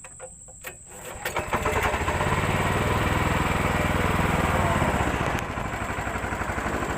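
A small engine starts about a second in and then runs steadily, a little quieter from about five seconds in.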